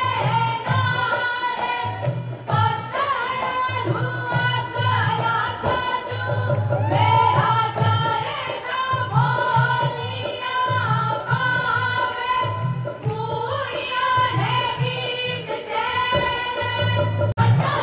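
A group of women singing a Punjabi folk song into microphones over the hall's sound system, with a drum beating along underneath.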